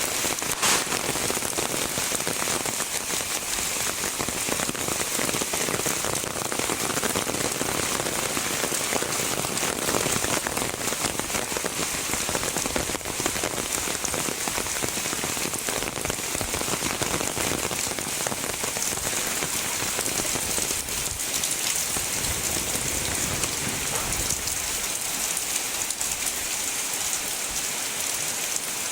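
Heavy rain falling steadily, a dense even hiss of drops with fine close patter.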